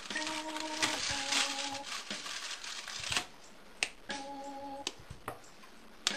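Paper-and-foil wrapper of a chocolate bar crinkling as it is torn open. This is followed by a few sharp snaps as squares of chocolate are broken off the bar.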